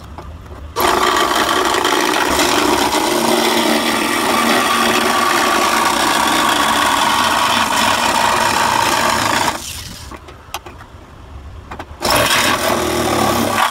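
Small corded power tool cutting through the sheet metal of a car fender. It starts under a second in, runs for about nine seconds, stops for about two seconds, then runs again briefly near the end.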